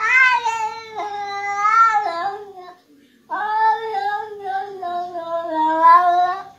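A Scottish Fold cat giving two long, wavering yowls, the second starting after a short pause about three seconds in.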